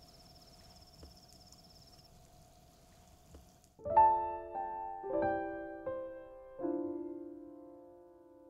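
Faint insects, likely crickets, trilling in a steady high thin tone. About four seconds in, background piano music starts: a handful of soft chords struck one after another, each left to ring and die away.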